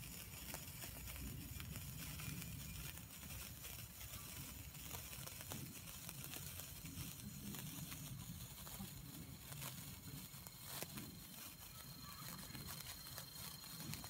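Two gold wire sparklers burning with a faint, irregular crackle of tiny pops, over a low background rumble.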